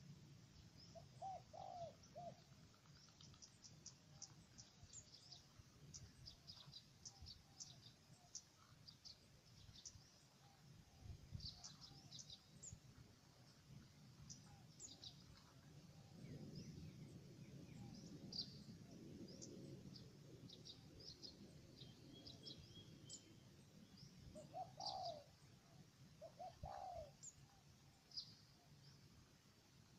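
Spotted doves cooing faintly: a short group of low coos about a second and a half in, and two more groups near the end. Many small birds chirp high and rapidly throughout.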